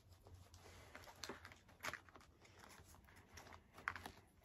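Near silence, broken by a few faint, brief clicks and rustles of food being handled and eaten. The sharpest one comes near the end.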